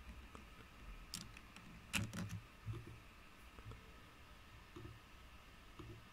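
A few faint, sharp clicks of a computer mouse, the loudest about two seconds in, with soft low thuds between them.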